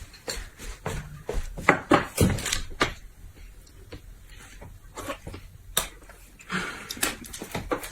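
Close-miked mealtime sounds: a run of sharp clicks and taps of eating and tableware, with a few louder knocks about two seconds in and again near the end.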